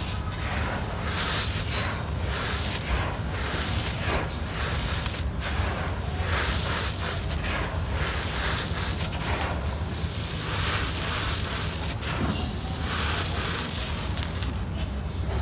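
Dry, gritty sand mixed with small stones pouring from hands onto a hard floor. The trickling patter swells again and again as handful after handful is scooped and let fall through the fingers.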